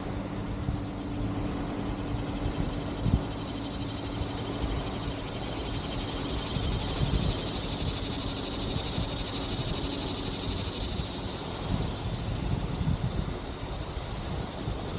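Shoreline ambience: wind rumbling on the microphone over a steady low engine hum, with a high hissing buzz swelling in the middle.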